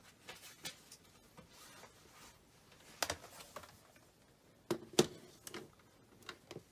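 Scattered light clicks and taps from small objects being handled on a desk, the loudest about five seconds in.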